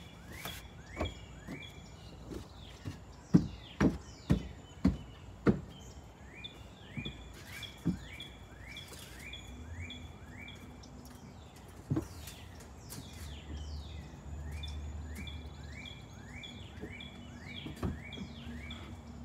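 A bird sings a short rising chirp over and over. A few seconds in, a run of five sharp knocks about half a second apart stands out above it, and single knocks follow later. A low hum comes in for a few seconds past the middle.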